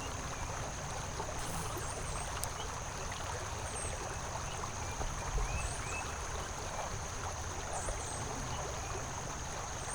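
Shallow creek water running steadily over a low, rocky bed, a constant even rush, with a few faint short chirps now and then.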